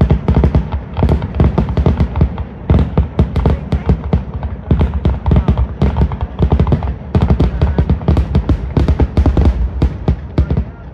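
Aerial fireworks shells bursting in quick succession, dense overlapping bangs and crackle several times a second over a low rumble.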